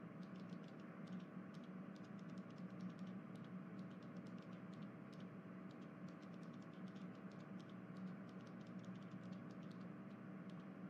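Faint room tone: a steady low hum with many light, irregular clicks throughout.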